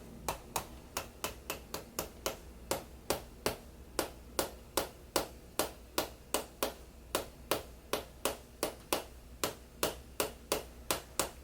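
Chiropractic tapping treatment: rapid, even, sharp taps at about four a second, without a break.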